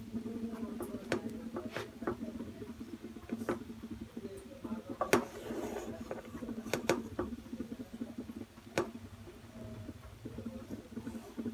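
Wooden spatula stirring and turning cooked pilaf rice in a frying pan, the rice fully dried of its water: soft rustling of the grains with irregular taps and scrapes of the spatula on the pan. A steady low hum runs underneath.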